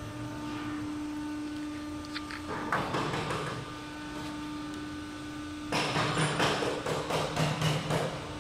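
Aluminium panel roll-forming machine running with a steady hum, while sheet metal rattles and scrapes in bursts about three seconds in and again for a couple of seconds from about six seconds.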